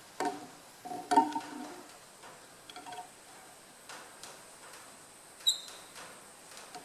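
Light clicks and knocks of a micrometer being repositioned around a crankshaft journal, with one sharp, ringing metal tap about five and a half seconds in.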